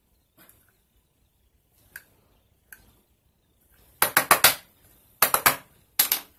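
Hard plastic eyeshadow palette case clicking and rattling in quick runs as fingers pry and work at its stuck lid: about five sharp clicks about four seconds in, three more just after, and two near the end.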